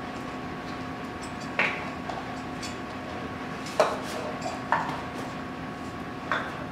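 Measuring cups clattering as they are handled and set down on a kitchen counter: four sharp knocks, a second or two apart, over a steady room hum.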